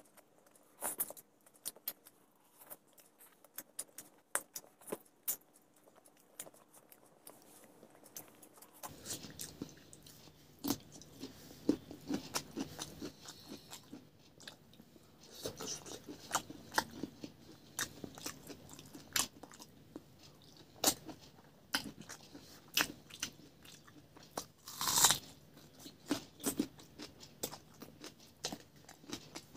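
A person chewing and crunching a mouthful of food, with many irregular wet mouth clicks and smacks and one louder crunch near the end. A faint steady low hum joins about a third of the way through.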